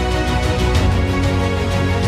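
Soundtrack music with held bass notes and sustained layered tones.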